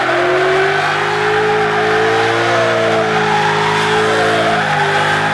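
Tyres of a Tesla-motored electric BMW E36 drift car squealing in one long, sustained slide, the pitch wavering slightly.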